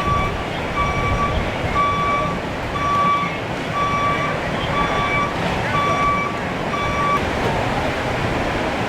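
A vehicle's reversing alarm beeping about once a second, stopping about seven seconds in, over a steady rushing noise.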